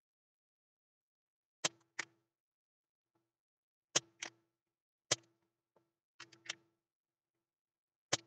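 Spring-loaded desoldering pump (solder sucker) clicking as it is fired over solder joints on a circuit board, drawing off molten solder. There are five sharp snaps at intervals of one to two seconds, most followed by a softer second click a fraction of a second later.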